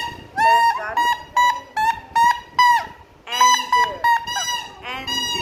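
Small plastic toy trumpet (a baja) blown by a child in about a dozen short, honking toots, most of them dipping in pitch as they end.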